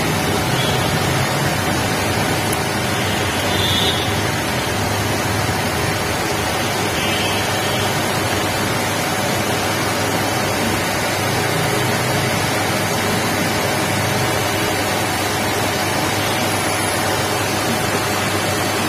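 Steady rushing background noise with a low hum and no distinct events.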